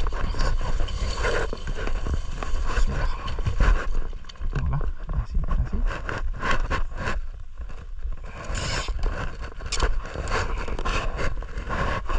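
Irregular close rustling, scraping and clicking over a constant low rumble.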